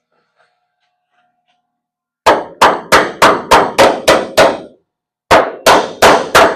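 Hand hammer striking metal: eight quick, ringing blows at about three a second, a short pause, then four more.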